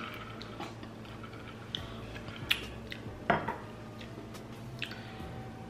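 A few light clinks, a straw knocking against a gold metal cocktail shaker, spaced roughly a second apart over a low steady hum.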